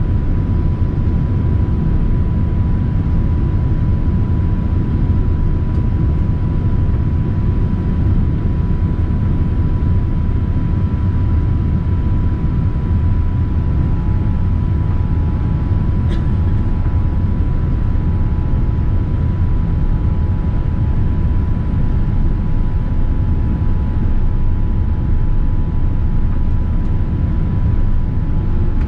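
Steady cabin noise inside a Boeing 787-9 airliner: a constant low rumble of engines and airflow with a faint steady whine over it. A single click sounds about 16 seconds in.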